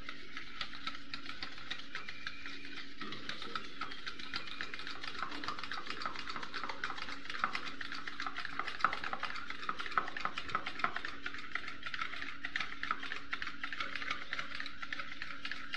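Wire whisk beating an egg into cake batter in a bowl: rapid, continuous clicking and scraping of the wires against the bowl, with a few louder knocks.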